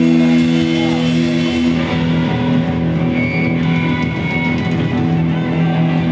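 Rock band playing live, electric guitars ringing out long held notes.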